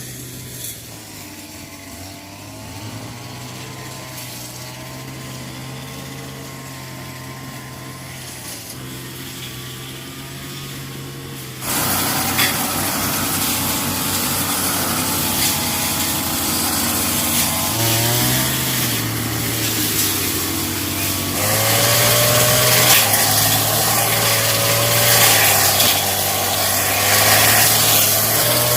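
Small two-stroke petrol brush cutter running, its engine pitch wavering up and down. About twelve seconds in it turns suddenly much louder and harsher, and stays that way.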